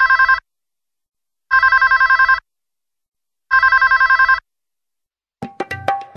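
Electronic telephone ringing: short trilling rings about two seconds apart, each a fast two-tone warble lasting just under a second. Near the end a music track with sharp percussive hits starts.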